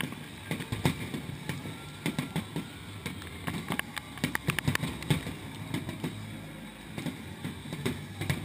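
Fireworks shells bursting in quick, irregular succession: sharp bangs and crackles over a steady low rumble, heaviest about a second in and again around four to five seconds in.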